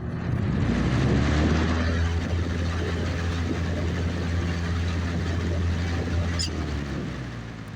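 Lakewood P223 box fan starting up: the motor's electric hum and rushing air build up quickly, then run steadily. About six and a half seconds in there is a click, and the hum stops while the air noise fades as the blades spin down.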